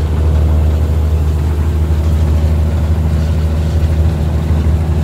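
Cummins M11 inline-six diesel engine of a White/GMC truck running steadily under load at highway cruise, about 1,500 rpm, heard as a loud, even low drone inside the cab.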